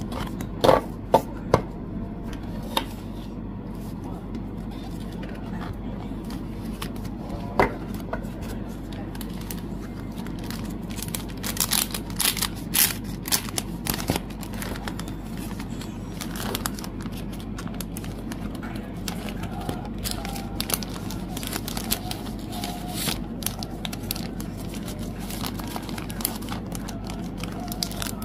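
Fan kit packaging being handled and opened: plastic and paper crinkling and rustling, with a few sharp clicks and taps in the first couple of seconds and again near 8 s, and a busier stretch of rustling about 11 to 15 seconds in, over a steady low hum.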